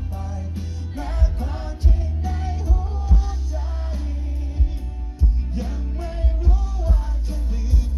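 A live band playing with singing over electric guitar, heavy bass and drums, keeping a steady beat.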